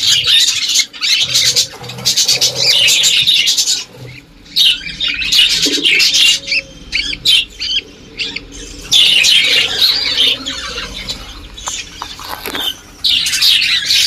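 Budgerigars chattering and squawking, a dense run of rapid high chirps that comes in stretches with brief lulls.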